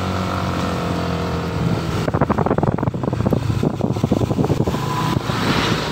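Motorcycle engine running steadily while riding. From about two seconds in, wind buffets the microphone in a rapid flutter.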